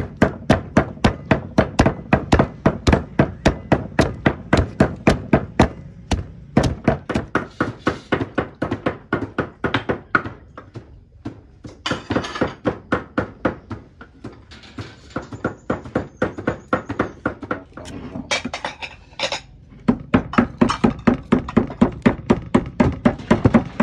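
Stone pestle pounding sliced lemongrass and leaves in a stone mortar for kroeung paste: steady dull thuds about three to four a second, thinning out in the middle and picking up again near the end.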